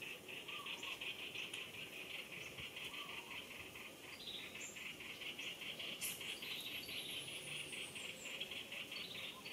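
Insects trilling in a steady, rapidly pulsing chorus, with short bird chirps and a longer falling bird call over it about six seconds in.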